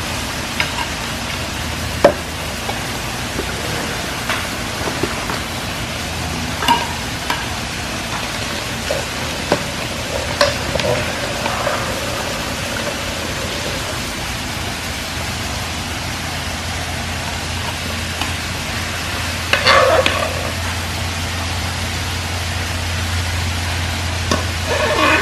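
Metal tongs clinking and scraping against a frying pan as steaks are lifted out of their sauce, with scattered clicks and a louder clatter about twenty seconds in and again near the end. A steady hiss and low hum run underneath.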